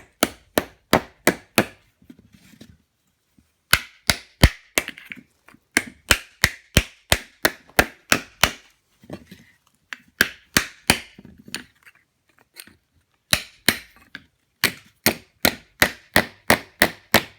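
Hammer blows on a cold sheet-steel blank being dished into a hollow in a wooden block. The strikes come in runs of quick, sharp blows, roughly three a second, with short pauses between runs.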